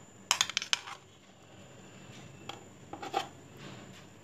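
Metal spoon clinking and scraping against a bowl as boiled black-eyed peas are scooped and tipped out: a quick run of clicks about half a second in, then a few softer taps later.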